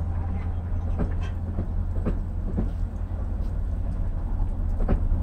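Road traffic driving over a railroad grade crossing: cars and a box truck crossing the tracks, with a steady low rumble and scattered irregular knocks.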